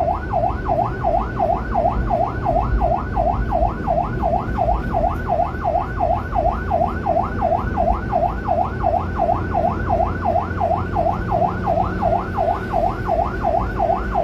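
Electronic yelp siren, a fast wail that rises and falls about three times a second without a break, like an ambulance's.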